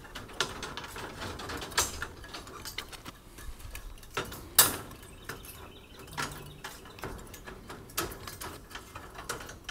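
Rebar being tied with steel tie wire and pliers: scattered metallic clicks and scraping as the wire is wrapped and twisted around the bars. The sharpest click comes about four and a half seconds in.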